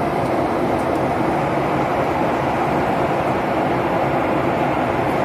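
Steady cabin noise of a jet airliner in flight, heard from inside the cabin: a constant, even rush of engines and airflow.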